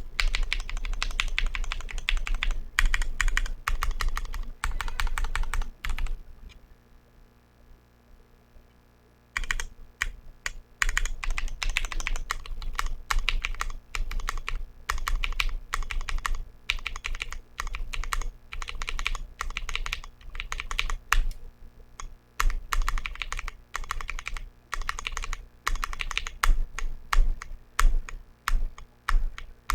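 Typing on a Glorious GMMK Pro aluminium 75% mechanical keyboard fitted with TTC Wild switches and JTK Suited Assassin keycaps: a fast run of key clacks, a pause of about three seconds, then steady typing again that turns into slower, evenly spaced single strokes near the end.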